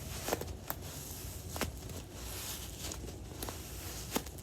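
Sand-filled balloon squishy squeezed in the hands: a gritty, sandy crackle of the sand shifting inside the rubber, with a few sharp clicks.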